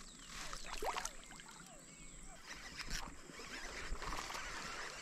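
Water splashing and sloshing at the surface of a shallow, weedy pond, with a few sharp splashes, over many short falling chirps from wild animals calling.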